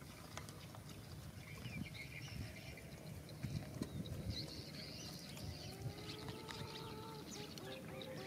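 Dogs eating rice from plastic bowls: soft, irregular lapping, chewing and muzzle-on-bowl ticks. Faint bird calls sound in the background.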